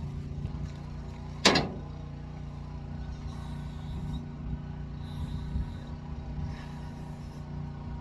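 A steady low engine hum, with one sharp knock or slam about a second and a half in.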